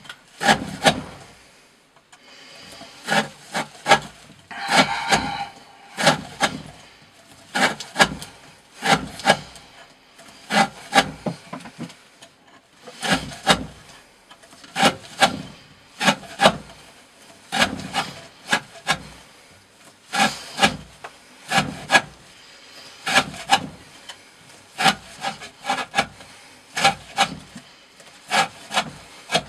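Knife blade cutting through 20 mm rope again and again in an edge-endurance test, about one cut every second and a half. Each cut is a short scrape with clicks.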